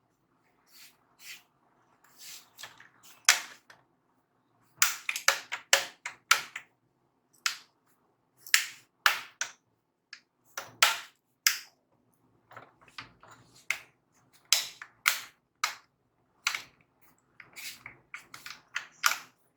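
Plastic snap-clips of an ASUS VivoBook Max laptop's case clicking into their locks as the panel is pressed down along its edges: many sharp clicks at irregular intervals, some in quick runs of two or three.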